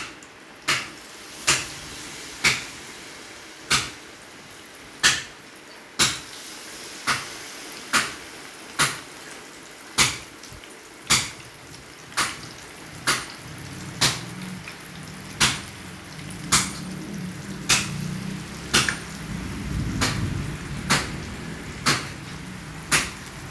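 Vegetable fritters deep-frying in oil with a steady hiss, cut by sharp knocks about once a second, which are the loudest sound.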